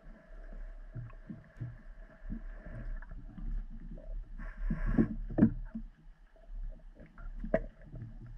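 Muffled underwater sound through a waterproof camera housing: low rumbling water movement with scattered soft knocks and thuds, loudest in a cluster about five seconds in.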